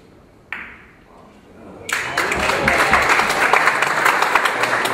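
One sharp clack of billiard balls striking about half a second in, then an audience applauding from about two seconds in.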